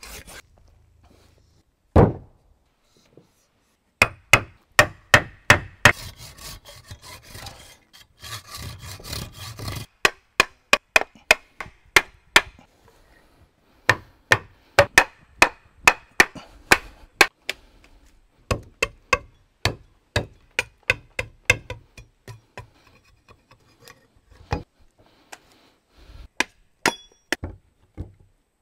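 Sharp wooden knocks in quick runs, about two to three a second, as a wooden baton strikes a knife driven into a log to split it. A stretch of rubbing, rasping noise runs under the knocks a few seconds in.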